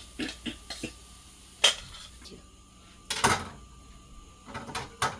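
Kitchen utensils and cookware clinking and knocking while pancakes are cooked in a pan: a few light taps, a sharp clink, and a louder clatter of dishes about three seconds in.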